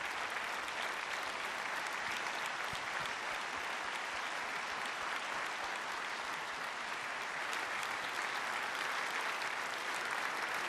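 Conference audience applauding steadily, a dense patter of many hands clapping.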